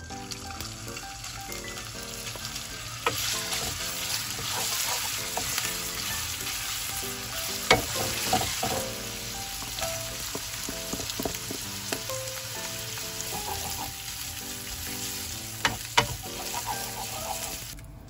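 Sliced meat and sausage sizzling as they stir-fry in hot oil in a non-stick wok, the sizzle growing louder about three seconds in. A wooden spatula knocks and scrapes against the pan a few times.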